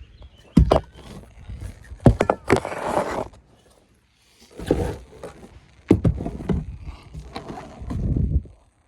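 Close handling noises: a few sharp knocks and thuds mixed with scraping and rustling, as gear is moved and set in place by hand.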